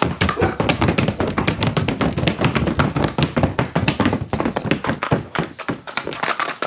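Colombian Paso Fino horse's hooves striking hard ground in its quick, even four-beat gait: a fast patter of sharp taps, several a second.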